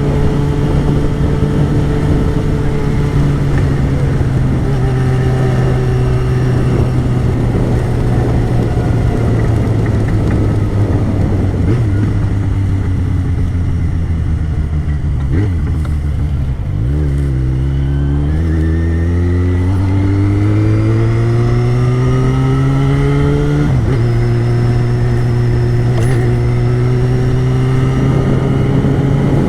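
Yamaha XJ6's 600 cc inline-four engine running at a steady cruise, dropping in pitch a little past halfway, then rising steadily as the bike accelerates, with a gear change near the end of the rise before it settles back to a steady pitch.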